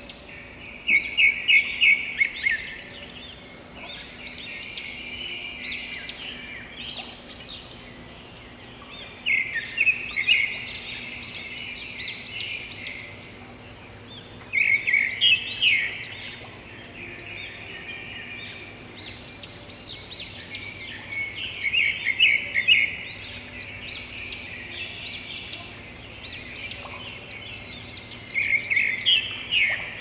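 Wild songbirds singing, with chirps running throughout. Five times, a louder phrase of rapid repeated notes stands out, each about a second and a half long.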